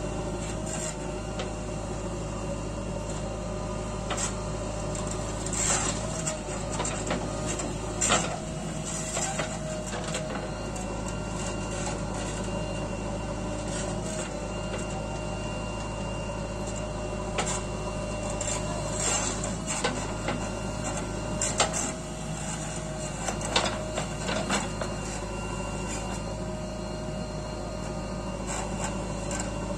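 JCB 3DX backhoe loader's diesel engine running steadily as the backhoe digs, with scattered sharp knocks and scrapes of the bucket against stony soil.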